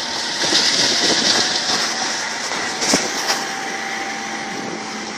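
Road and wind noise from inside a moving ambulance, a steady rushing hiss, with one sharp knock about three seconds in.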